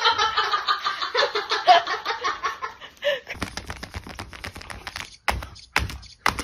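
A person laughing in quick pulses for about three seconds, then a dog's paws tapping and clicking on a tablet's screen, with two sharper taps near the end.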